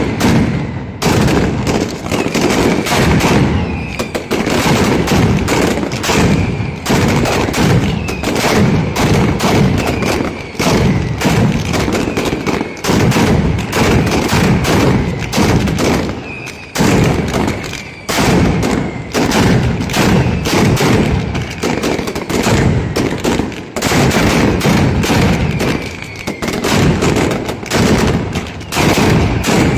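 Mascletà: a continuous, rapid barrage of firecracker detonations, bangs coming too fast to count, with a few brief dips in intensity, and a thin high whistle heard on and off among the bangs.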